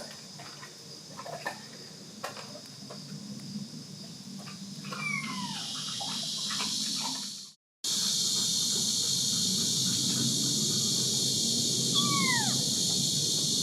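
Kitten meowing twice, each a short thin meow that falls in pitch, about five seconds in and again near the end. Light rustling and clicks come first. After a brief cut, crickets chirr steadily behind the second meow.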